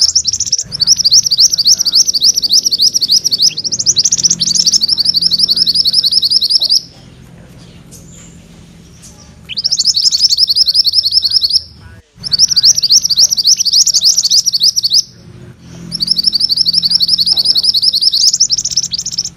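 A mantenan kuning songbird singing a fast rolling trill (ngerol): long runs of rapidly repeated high notes lasting a few seconds each, broken by short pauses.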